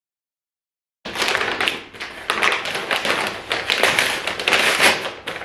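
Water running and splashing, starting abruptly about a second in.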